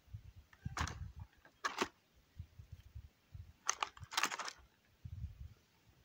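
Birds' beaks and feet tapping on the plastic bottles and trays of a drinking station: a few sharp clicking taps, the last ones in a quick cluster.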